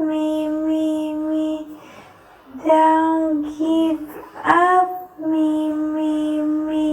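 A single high voice singing drawn-out "me" notes at one steady pitch: a long held note, a few shorter ones with an upward scoop into one near the middle, then another long held note.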